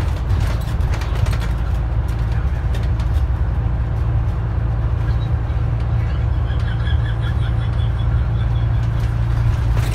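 Scania N94UD double-decker bus on the move, heard from inside the lower deck: a steady low engine and road drone, with a few rattles from the body in the first second or so.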